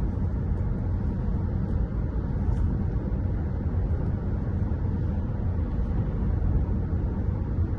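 Steady low rumble of road and engine noise inside the cabin of a Chery Tiggo 7 Pro cruising on the highway.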